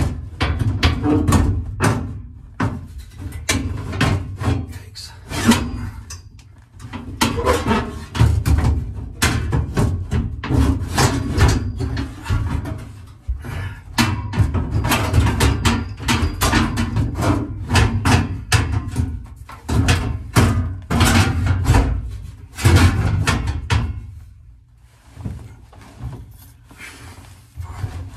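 Steel rear package tray knocking and clattering against the roll bar tubes and car body as it is worked out past the bars: a dense run of knocks and scrapes that thins out near the end.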